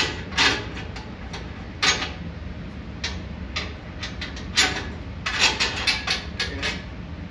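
Bolts and a metal spare-tire mount bracket being handled and fitted by hand: irregular sharp metal clinks and clicks, with a quick run of them near the end.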